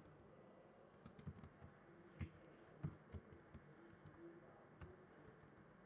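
Faint keystrokes on a computer keyboard: a scattered run of light taps at an uneven pace.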